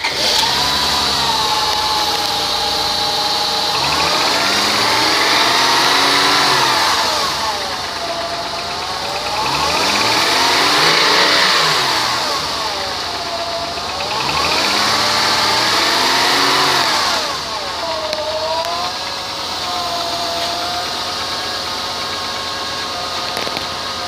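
2004 Honda Pilot's 3.5-litre V6 engine running at idle and revved up and back down three times, each rev a smooth rise and fall in pitch lasting a few seconds. It then settles back to a steady idle.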